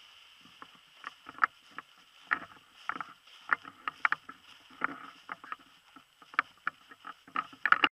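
Irregular close knocks and rustles, a few a second, from the camera being jostled as it shifts beside the paraglider wing fabric; no engine is heard running. The sound cuts off abruptly near the end.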